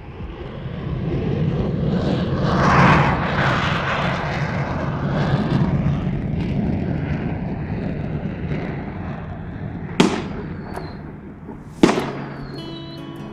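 Battle sound effect: a long rumbling roar swells to a peak about three seconds in and slowly fades, then two sharp cracks about two seconds apart each leave a short falling ring.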